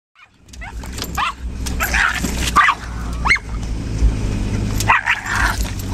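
A miniature pinscher barking and yipping in a string of short, sharp calls at the roadside trees, over the steady low rumble of the moving vehicle it rides in.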